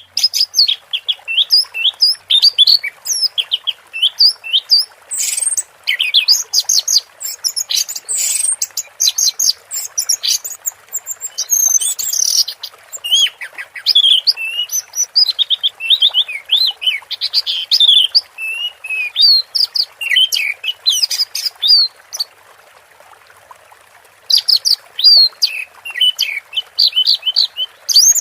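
Orange-headed thrush singing a fast, nearly unbroken run of high chirps and whistles in the 'teler' style, pausing for about a second and a half near the end, over a steady hiss of running water.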